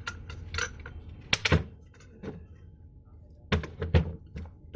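Parts of a washing machine motor being handled and fitted back together: a string of sharp knocks and clunks of metal parts, the loudest a double clunk about a second and a half in and a cluster near the end.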